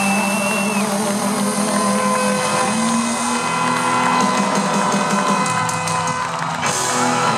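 Live band playing loud amplified rock music, with an electric guitar and band holding sustained chords and drums coming in near the end.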